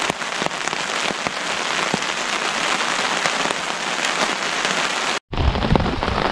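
Steady rain falling, a dense hiss with many small drop ticks. It cuts out for an instant about five seconds in, then comes back fuller and deeper.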